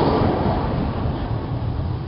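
Drag racing cars' engines, loud at the start and fading steadily as the cars speed away down the strip just after their launch.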